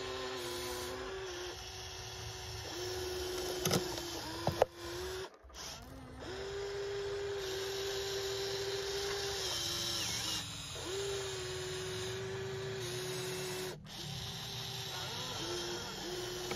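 Small electric motors of a radio-controlled toy construction machine whining as it works, starting and stopping in spells, with a few sharp clicks.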